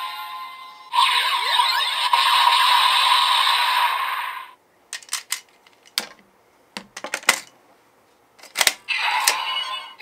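Electronic sound effects from a Kamen Rider Gavv DX toy, up to about four and a half seconds in. Then several sharp plastic clicks and snaps as toy parts are handled and fitted together. Another toy sound starts near the end.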